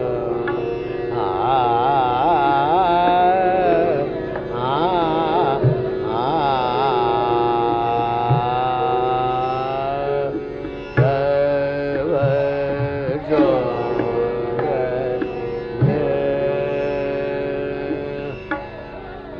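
Hindustani classical vocal music in Raga Rageshri: a male voice sings fast, wavering ornamented phrases over a steady drone, and a few slow tabla strokes come in the second half.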